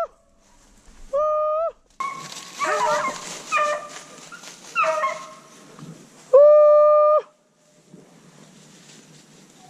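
Hunting beagles giving tongue: short yelps with a steady rustle of brush from about two seconds in, and long, level bawls, the loudest just past six seconds.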